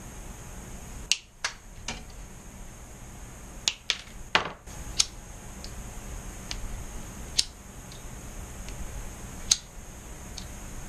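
Small side cutters snipping and stripping thin fan wires: about a dozen sharp, separate clicks spread unevenly. A lighter is flicked alight near the end.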